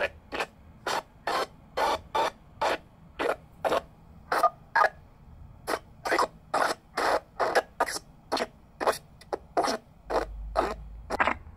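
Sangean pocket FM radio's speaker playing a broadcast that consists only of short scratchy noise bursts, repeating about two to three times a second at slightly uneven spacing, with no speech or music.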